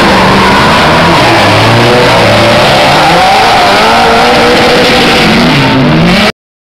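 Drift cars' engines revving up and down while their tires squeal through a sideways slide, very loud; the sound cuts off abruptly to silence about six seconds in.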